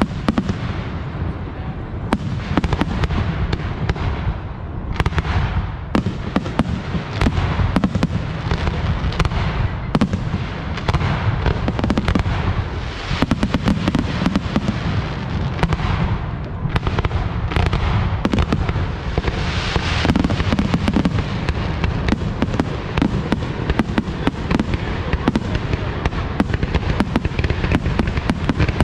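Aerial fireworks display in a continuous barrage: shells bursting in quick succession, several bangs a second overlapping over a steady low rumble.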